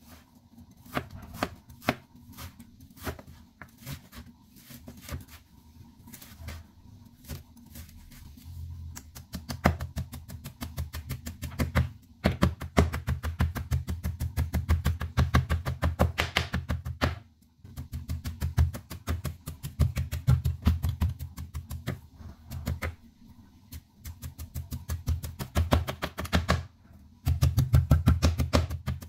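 Beef being minced by hand with a large kitchen knife on a wooden cutting board, the blade knocking the board. Scattered strokes at first, then fast, steady chopping several strokes a second, broken by a few short pauses.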